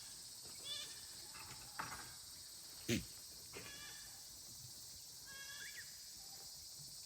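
Young goats bleating, a handful of short high calls spread over several seconds, over a steady high-pitched hiss; a brief, sharp, louder sound about three seconds in.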